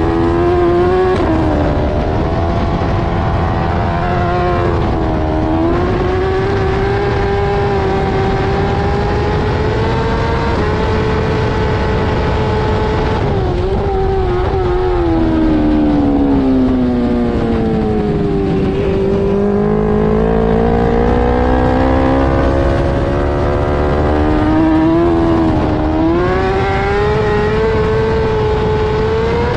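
BMW S1000RR superbike's inline-four engine at racing revs under hard acceleration, its pitch climbing with quick drops at upshifts in the first few seconds. Around the middle the pitch falls steadily through braking and downshifts, then it climbs again as the bike accelerates hard.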